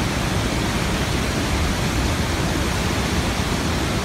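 Steady rushing of a mountain stream cascading in white water down a narrow rocky gorge.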